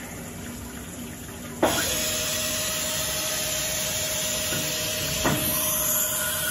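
Retrofitted Brother TC-227 CNC mill: a sharp click about one and a half seconds in, then a steady hiss of spray with a faint steady whine under it. Another click comes near the end.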